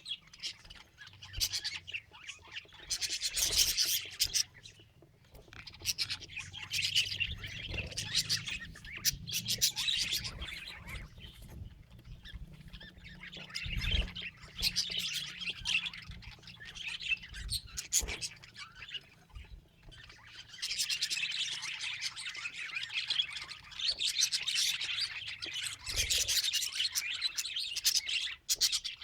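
Budgerigar chatter: fast chirps, warbles and squawks coming in bouts, with a few brief low knocks in between.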